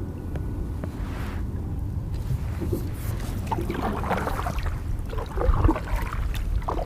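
Water sloshing and splashing around a kayak on a lake, in irregular bursts, over a steady low rumble.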